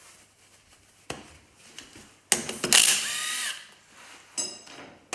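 Cordless impact wrench spinning a lug nut off a steel wheel: one burst a little past two seconds in, lasting about a second, its pitch falling as it winds down. A click comes about a second in, and a short ringing metallic clink near the end.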